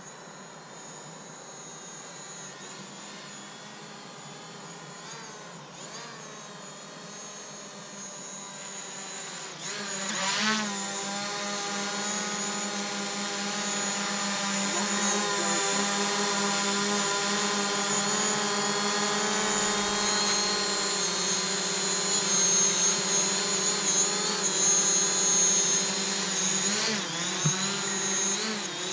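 DJI Mavic Pro quadcopter's propellers buzzing as it flies in and hovers close by, growing louder about ten seconds in, the pitch wavering as it manoeuvres.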